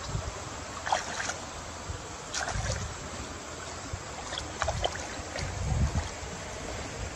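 River water sloshing and splashing around people wading chest-deep while handling a fishing net, with a few small splashes and drips over a steady hiss of water and low rumbles.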